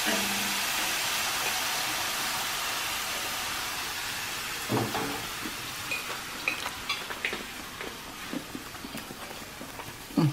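Banana-oat pancake batter sizzling as it is poured into a hot non-stick frying pan. The sizzle is loudest at first and fades slowly, with a few light clicks and knocks in the second half.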